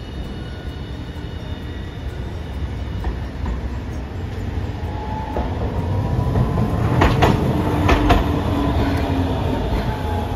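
Hiroden 800-series street tram approaching and passing close by on in-street track, its low rumble building up, with two sharp clacks about a second apart as its wheels cross rail joints. A faint whine rises slowly in pitch as it comes past.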